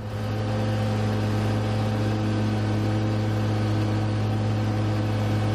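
Exmark zero-turn riding mower's engine running steadily at mowing speed, a constant hum with no change in pitch.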